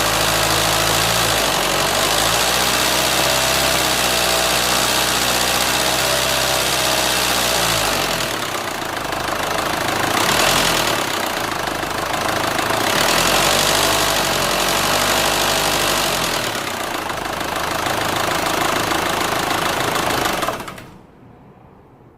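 Renault Scénic II 1.9 dCi four-cylinder turbodiesel running with an abnormal noise, bad enough that the owner plans to remove and replace the engine. It idles steadily, then the revs rise and fall about three times, and the engine is switched off near the end.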